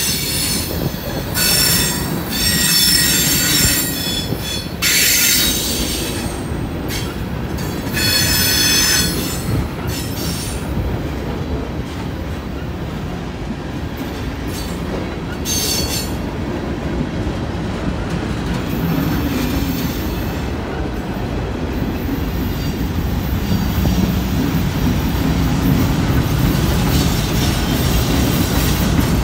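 Freight train cars, mostly tank cars, rolling past with a steady low rumble of steel wheels on rail. High-pitched wheel squeal rises and falls in several bouts in the first ten seconds and comes once more briefly about sixteen seconds in.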